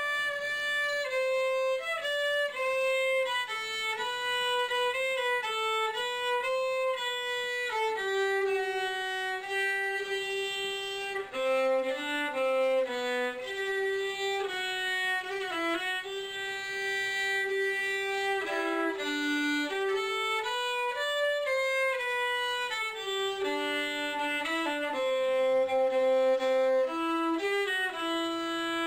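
Solo fiddle bowed in a slow melody, moving from note to note with many notes held for a second or more.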